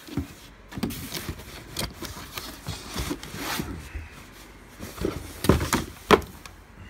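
Cardboard box being handled: irregular rustling and scraping of the cardboard, with two sharp knocks near the end.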